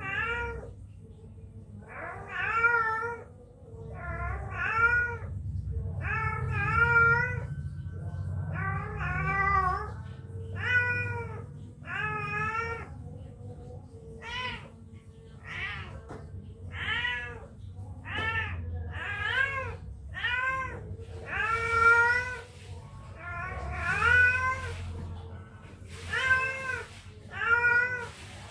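Two-week-old kittens meowing over and over, about one high, arching cry a second, many of them in quick pairs.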